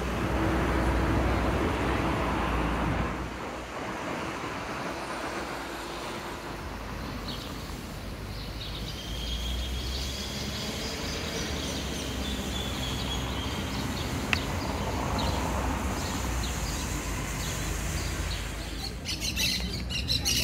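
Birds chirping over a low, steady rumble of city traffic, with harsh, rapidly repeated squawking calls starting near the end.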